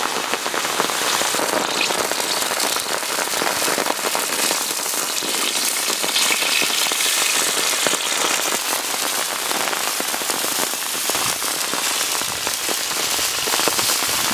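Small onions frying in hot oil in an iron wok, a steady, dense sizzle with crackling.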